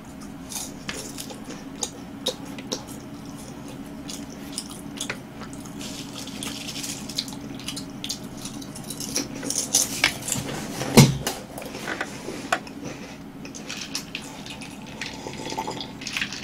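Close-miked chewing of Home Run Ball chocolate-filled choux-puff snacks: soft crunches, clicks and wet mouth sounds, busiest and loudest around ten to eleven seconds in. It ends with a sip from a glass of ice water.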